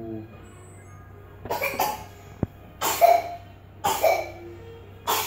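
A person coughing: about five short, harsh coughs, the first two close together and the rest spaced about a second apart, with one sharp click about halfway through.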